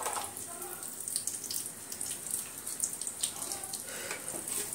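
Whole spices and curry leaves sizzling and crackling in hot ghee in an aluminium pressure cooker, with a spoon stirring them toward the end.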